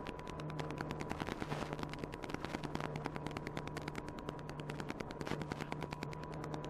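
Onboard audio from an Apprentice 15e electric RC airplane in flight: a low motor and propeller hum that breaks off and returns several times under a steady high tone, with rapid crackling clicks, about ten a second, throughout.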